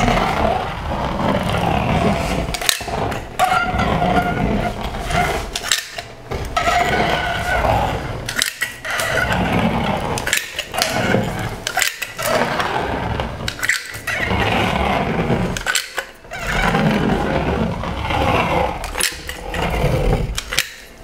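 A caulk gun squeezing out a long bead of adhesive onto a wall, the trigger pumped again and again, with clicks and short breaks every two to three seconds between strokes.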